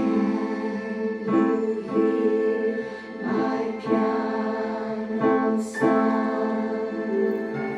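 Piano played by a young child: a slow series of sustained chords, struck about once or twice a second and left to ring, with the last chord struck near the end.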